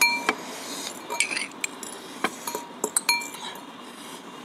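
Metal cutlery clinking against a glass bowl: two sharp clinks that ring briefly, one at the start and one about three seconds in, with lighter taps and clicks of the utensils in between.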